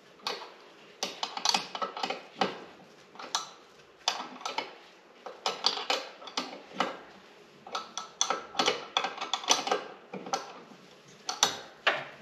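Sharp metal-on-metal clinks and clicks from a 9/16 wrench working the belt idler bolt on a Dixon zero-turn mower deck, in irregular clusters of quick taps, as the idler is tightened to set the deck belt's tension.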